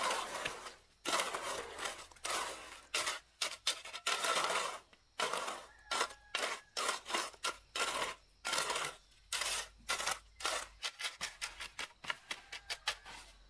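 Repeated rough scraping strokes of hand-tool work, a few longer strokes at first, then quicker, shorter ones at about two to three a second.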